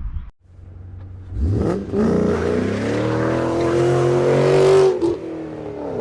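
Engine running, revving up about a second and a half in, held at a steady higher speed, then dropping back toward idle near the end.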